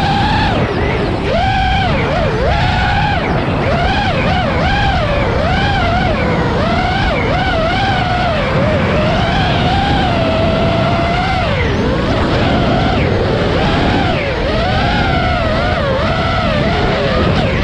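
iFlight Nazgul5 five-inch FPV quadcopter's brushless motors and propellers whining, the pitch swooping up and down constantly with the throttle, with a dip about twelve seconds in. A rush of wind noise runs underneath.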